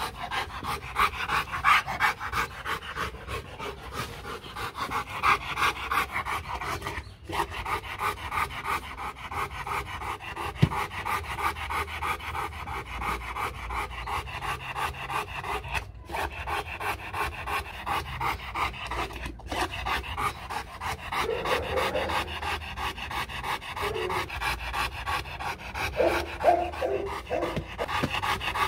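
Rottweiler panting fast and steadily, with its mouth wide open.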